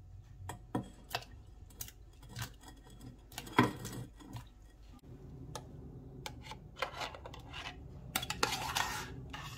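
Kitchen clatter of dishes: a ceramic plate clinking and knocking against the rim of a stainless steel saucepan as watermelon balls are tipped in, the sharpest knock about three and a half seconds in. Near the end comes a denser patch of scraping clatter from the pot as a thick sauce is poured out.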